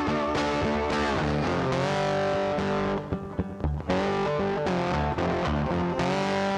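Background music led by distorted electric guitar, its notes sliding in pitch; it drops away briefly about three seconds in before carrying on.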